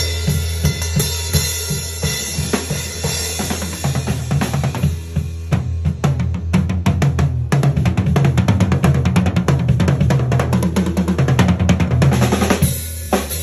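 Drum kit played in a live solo: snare and tom strokes over bass drum and cymbals, with a burst of very rapid strokes about halfway through and a short break near the end.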